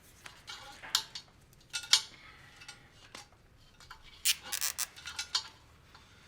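Zip ties being pulled tight, their ratchet teeth clicking: a few sharp clicks about one and two seconds in, then a quick run of clicks between about four and five seconds.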